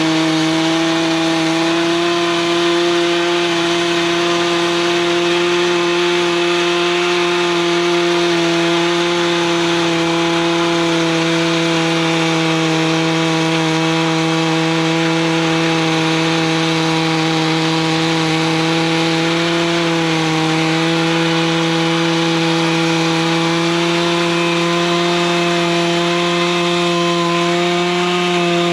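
Stihl MS 661 two-stroke chainsaw held at steady full throttle, its chain ripping lengthwise through a beech log in a chainsaw mill. The engine pitch dips slightly about twenty seconds in and again near the end.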